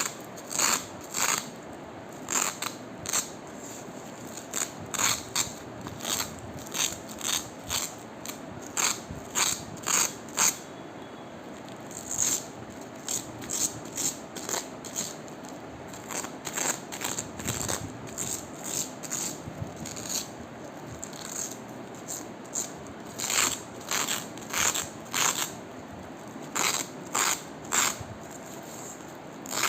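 Hook-and-loop (Velcro) strips being ripped apart in dozens of short, quick rips, coming in irregular clusters with a couple of brief pauses.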